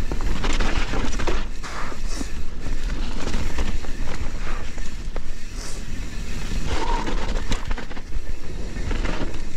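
Mountain bike descending a wet, muddy trail at speed: a steady rushing rumble with many short clicks and knocks as the tyres and bike rattle over the ground.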